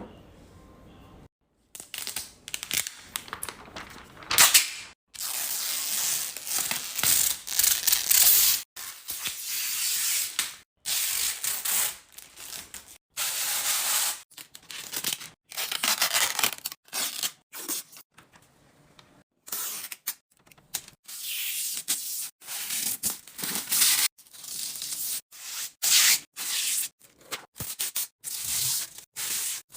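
Groceries and food containers handled while a refrigerator is restocked: a quick run of short, noisy sounds of packaging crinkling and tearing, items rubbing and being set down. The sounds start and stop abruptly every second or two.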